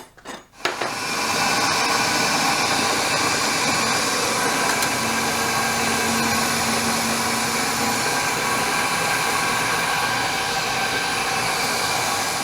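Electric drill running steadily as it drills through a metal clamp piece, after a few clicks as it is set up.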